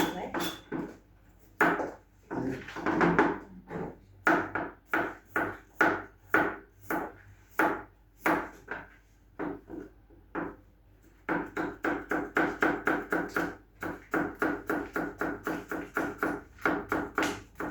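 Kitchen knife chopping vegetables into julienne strips on a wooden cutting board. The strokes come irregularly at first, then settle into quick, even chopping of about four strokes a second from about eleven seconds in.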